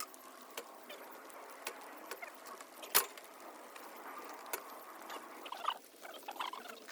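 Scattered sharp metallic clicks and knocks from hand work on metal parts, the loudest about three seconds in, with short squeaks near the end.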